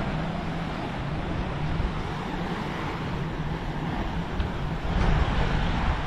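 Steady vehicle noise: a low, wavering rumble with hiss above it.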